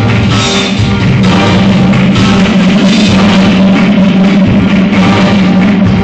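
Loud rock music with drums, playing continuously.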